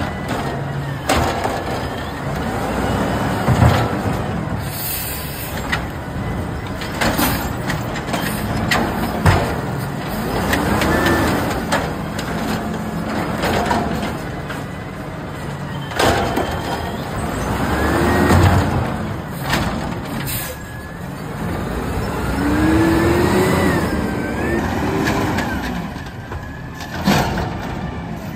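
Natural-gas automated side-loader garbage truck working the curb. Its engine revs up and down several times as the hydraulic arm lifts and lowers the carts, with repeated clanks and bangs from the arm and the carts, and air brake hiss.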